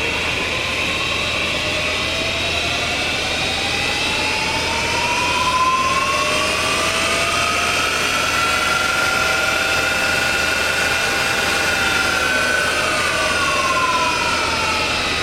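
Spindle and drive of a Bridgeport-type CNC vertical mill running with a whine. The whine rises slowly in pitch as the spindle speeds up, holds steady, then falls near the end as it slows.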